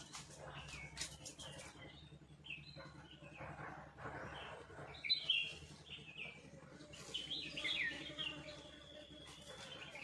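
Small birds chirping, with short calls and quick falling notes scattered throughout, loudest about five seconds in and again a couple of seconds before the end.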